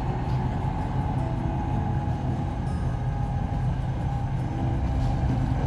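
SRT Red Line electric commuter train (a Hitachi AT100 unit) running between stations, heard from inside the carriage: a steady low rumble with a faint whine above it.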